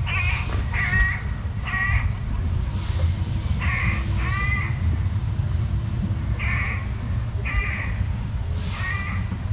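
A crow caws repeatedly, with harsh calls in twos and threes every couple of seconds, over a steady low rumble.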